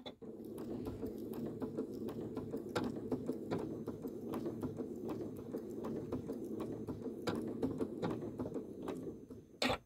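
Janome sewing machine stitching at low speed: a steady motor hum with fast, light needle ticking. It stops about nine seconds in, followed by a single click.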